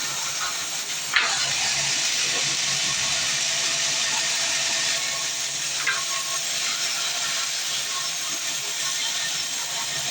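Sawmill saw cutting through a fresh mahogany log, a steady loud hiss of the blade in the wood over a faint constant machine hum. A sharp knock comes about a second in and a smaller one near six seconds.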